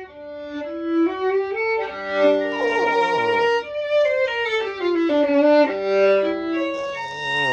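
Solo violin playing a melody, moving note by note in clear steps.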